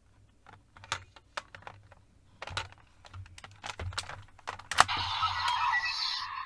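Scattered clicks and snaps of plastic toy parts being handled and fitted together, then a sharp snap about five seconds in, after which the toy transformation belt starts playing its electronic sound effect.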